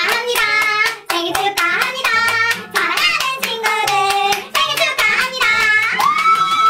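Two voices singing along with backing music while hands clap in a steady rhythm, ending on a long held note.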